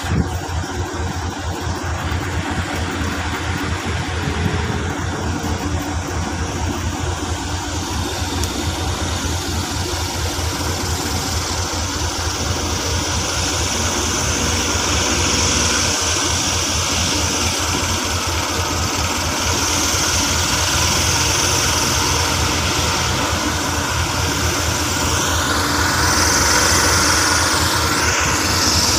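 Heavy diesel engine idling close by with a steady low throb. The engine noise grows slowly louder as a loaded logging truck approaches, with a rising whine near the end.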